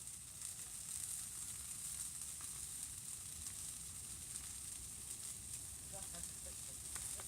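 Large bonfire burning with a steady hiss and faint crackling.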